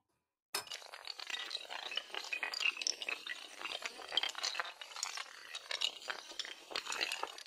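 Dominoes clattering as a long chain topples, a dense run of quick clicks that starts about half a second in.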